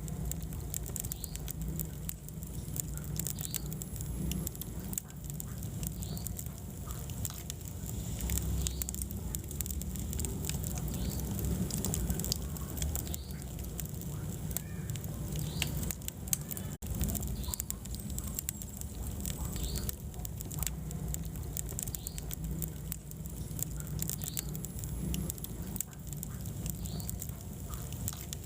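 Wood fire burning in a fireplace: frequent sharp crackles and pops over a steady low rumble of flames.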